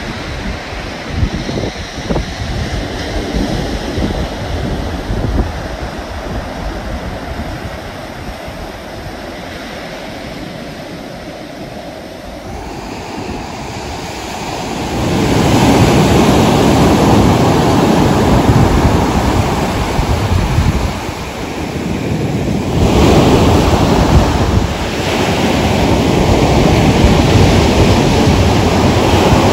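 Ocean surf breaking and washing up a sandy beach, with wind buffeting the microphone. The surf gets louder about halfway through and swells and eases a few times.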